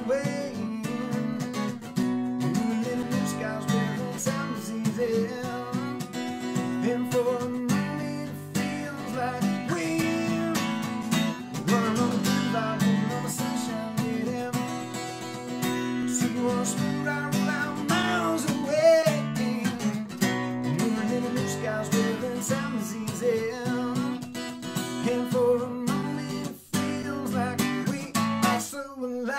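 Acoustic guitar strummed in a steady song accompaniment, with a man singing over it.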